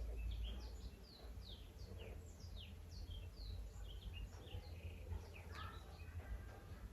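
Birds chirping faintly in the background: many short, quick chirps that slide downward in pitch, over a low steady hum.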